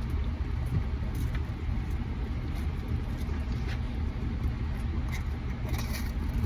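Car engine and cabin rumble, a steady low drone heard from inside the car, with a few faint clicks near the end.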